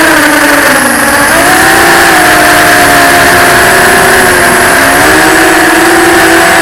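FPV quadcopter's brushless motors and propellers whining loudly over steady wind-like hiss, as picked up by the onboard camera. The pitch drops about a second in as the throttle eases, climbs back, then dips and rises again near the end.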